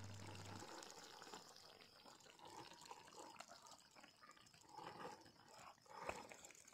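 Near silence: faint outdoor ambience. A low steady hum stops about half a second in.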